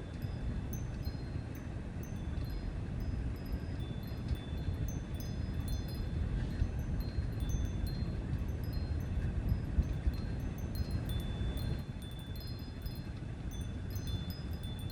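Wind chimes tinkling: high, clear notes at a handful of recurring pitches, scattered irregularly, over a steady low rumble.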